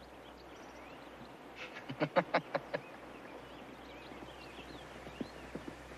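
A horse outdoors: a quick run of about seven sharp sounds about two seconds in, then only faint scattered sounds.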